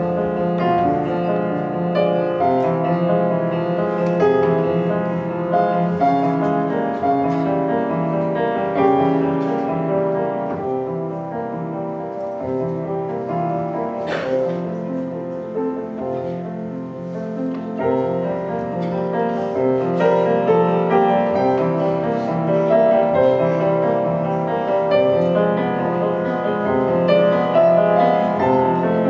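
Solo piano played live, a continuous flow of sustained notes and chords that softens in the middle and builds again toward the end. A single sharp click sounds about fourteen seconds in.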